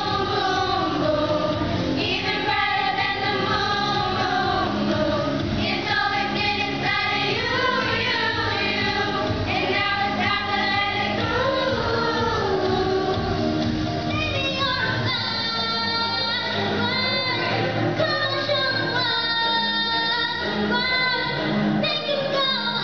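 A group of children singing a pop song together, with accompanying music throughout.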